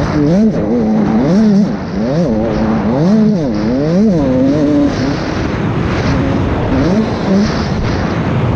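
Husqvarna 85cc two-stroke motocross engine heard from on board, revving up and down over and over as the throttle is worked, then running more steadily in the second half, over a constant rush of wind and track noise.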